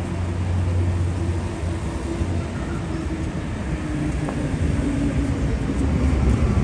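Street traffic: a motor vehicle's engine running close by, a steady low hum that grows louder toward the end.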